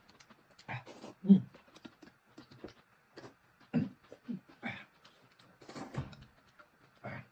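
Noisy eating at close range: chewing and slurping in short, irregular bursts, the loudest about a second in.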